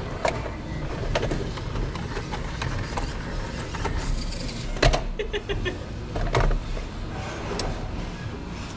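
Small electric motor and gearbox of a 1/18-scale RC rock crawler whining in spurts, with its tires and chassis clicking and knocking on rock. There is one sharper knock about five seconds in, then a quick run of ticks.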